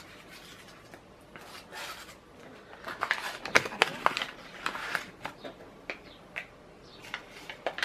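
Paper crinkling and rustling as a small folded brown-paper box is opened by hand, with a run of sharper crackles and clicks from about three to five seconds in.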